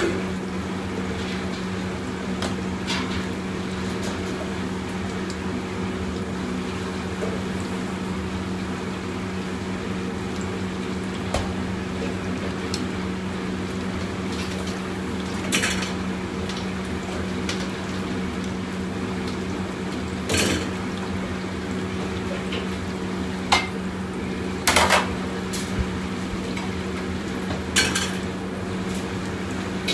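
Metal utensils clanking against steel pots and woks a handful of times, mostly in the second half, over the steady hum of a commercial wok range and kitchen extraction.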